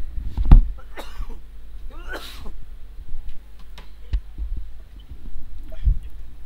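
A short, rough vocal burst from a person about two seconds in, and a few dull thumps, the loudest about half a second in, over a steady low electrical hum.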